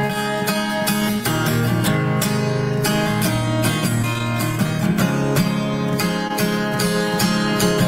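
Acoustic guitar strumming steady chords: the instrumental introduction to a song, before the singing comes in.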